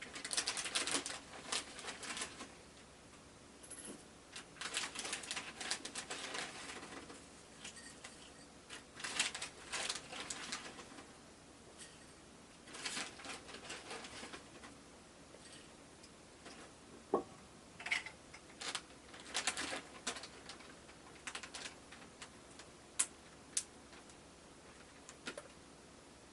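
A cat's claws scratching at a mesh window screen in repeated bursts of rapid strokes, each burst lasting a second or two with short pauses between: a hungry cat clawing the screen to call for its food.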